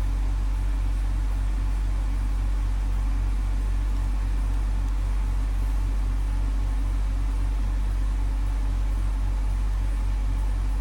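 Steady low electrical hum, strongest at the 50 Hz mains pitch with a fainter overtone about an octave above, unchanging throughout.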